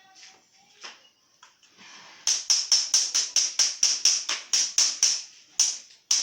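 Rapid, even taps or clicks, about five a second, starting about two seconds in, with a short break near the end.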